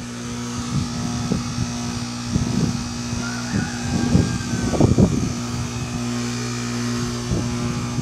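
2008 Goodman packaged heat pump in its defrost cycle: the compressor hums steadily while the outdoor fan stands still. Irregular thumps and rustles ride over the hum, loudest about five seconds in.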